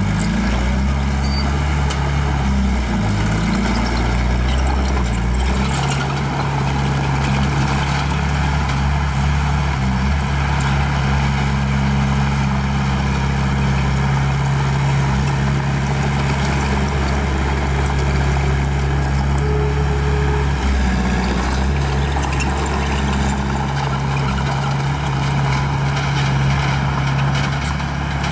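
Small bulldozer's diesel engine running hard and steadily. Its pitch shifts up and down over the first few seconds, then holds even.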